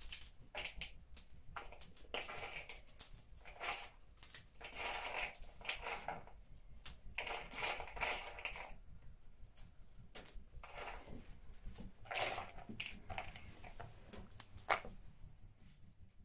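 Shelled walnut kernels crumbled by hand in a bowl, broken into coarse pieces: irregular dry crunching and crackling with scattered clicks.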